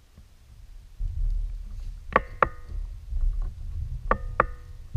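Gear knocking against a plastic fishing kayak: two pairs of sharp knocks, each with a brief ringing tone, about two and four seconds in, over a low rumble.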